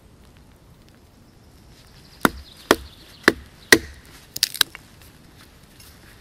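Knife blade being struck down into a flat wooden blank on a log, wood knocking as the blade is driven in to cut a notch in a carved cooking utensil. Four sharp knocks about half a second apart come about two seconds in, then a quick run of three lighter ones.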